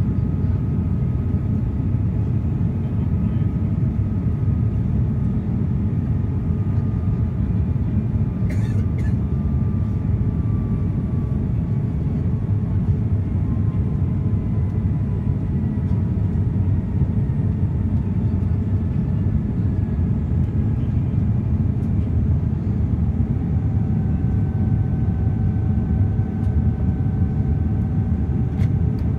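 Airliner cabin noise at a window seat over the wing during descent: a steady low rumble of the engines and airflow, with faint engine tones slowly drifting lower in pitch. A brief click sounds about nine seconds in.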